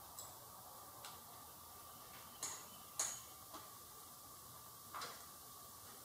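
About half a dozen faint, sharp metal clicks and taps as fingers fumble a carburetor mounting nut onto its stud in a tight space, the sharpest about three seconds in.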